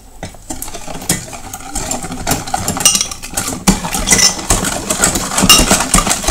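Electric hand mixer whisking egg whites in a glass bowl, its motor starting up about two seconds in and running steadily while the beaters rattle against the glass.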